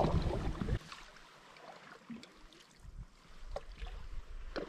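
Canoe paddles stroking through calm lake water: a heavier rumble of movement in the first second, then soft splashing with a couple of short sharp knocks or splashes near the end.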